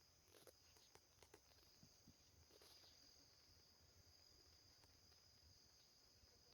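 Near silence with a faint, steady high-pitched insect trill, typical of crickets, and a few soft ticks in the first second and a half.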